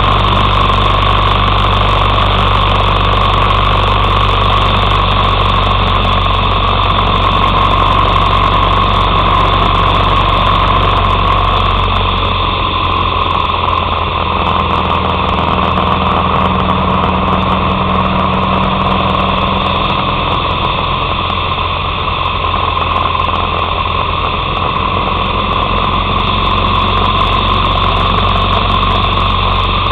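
Harley-Davidson Sportster 883's air-cooled V-twin engine running steadily on the road, heard through a camera mounted on the handlebars. The deepest part of the sound eases off a little about twelve seconds in.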